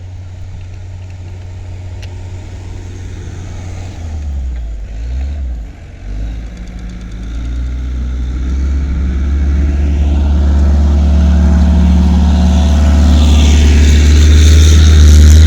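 Heavy snowplow truck's engine approaching, a low steady drone that grows steadily louder over the last several seconds, with a rising hiss of tyres and plowing on the snowy road near the end.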